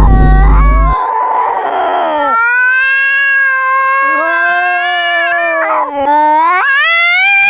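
Tabby cat meowing: short calls, then from about two seconds in one long, drawn-out yowl of several seconds that rises in pitch near the end.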